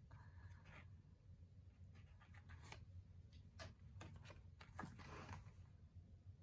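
Faint paper handling: light rustles and soft clicks as a small printed photo is peeled from its backing and pressed flat onto a planner page, with a soft rustle about five seconds in.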